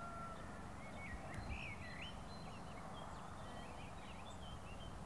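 Faint rural outdoor ambience: a steady low background with scattered short bird chirps and whistles, busiest about a second and a half in. A rooster's crow trails off right at the start.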